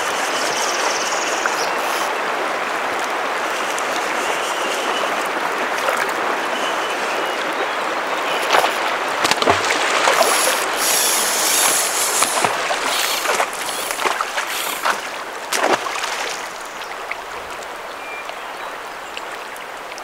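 Steady rush of river current. A run of sharp clicks and knocks stands out between about eight and sixteen seconds in, the loudest part.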